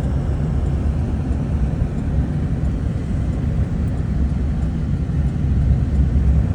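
Steady engine and road rumble inside the cab of a vehicle driving on a snow-covered highway.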